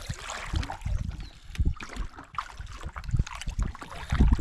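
Double-bladed kayak paddle strokes through calm lake water: blades dipping and pulling, water splashing and dripping off them, with irregular low knocks, the heaviest near the end.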